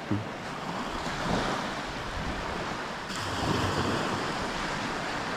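Small surf breaking and washing up a beach, with wind on the microphone; the wash swells louder about three seconds in.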